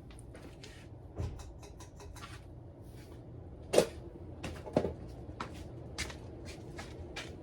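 1995 Hunter Original ceiling fan running on high with a steady low hum. Over it comes a series of irregular sharp clicks and knocks, the loudest about four seconds in.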